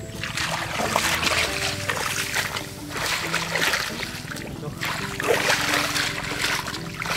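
Irregular splashing and sloshing of shallow water as a person wades and gropes through flooded grass, over background music with held notes.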